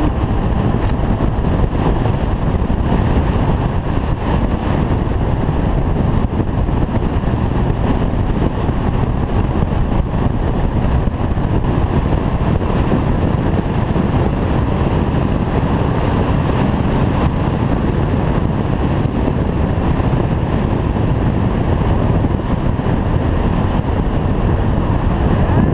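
Motorcycle riding at a steady pace, its engine running under a constant rush of wind on the microphone.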